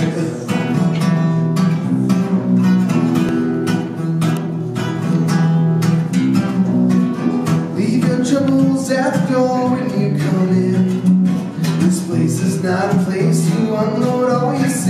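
Two acoustic guitars played together in a steady, busy rhythm of strummed and picked notes, with a voice singing along from about halfway through.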